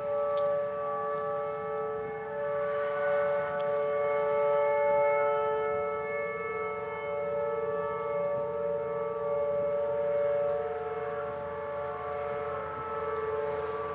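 Whelen Vortex electronic tornado siren sounding a steady alert: a chord of several level tones whose loudness swells and fades slowly.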